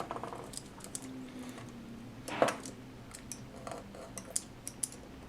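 Scattered small clicks and taps from handling the parts of a dismantled 18650 lithium-ion cell, the opened metal can and the smaller cell found inside it, with one louder click about two and a half seconds in.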